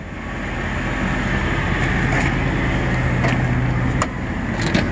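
Electric entry step motor humming steadily for about four seconds as the step extends, stopping with a click. Further clicks follow near the end, over a steady machine drone.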